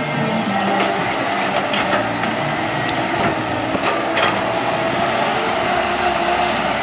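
Caterpillar 312D hydraulic excavator running steadily as it digs, its diesel engine under load, with several short knocks and clatters from the bucket and soil in the first few seconds.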